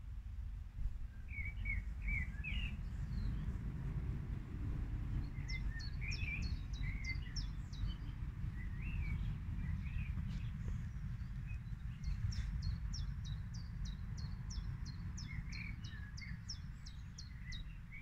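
Wild songbirds singing: one repeats a fast run of short, high, falling notes, about three a second, in two bursts, while others add lower warbling phrases. A steady low rumble lies underneath throughout.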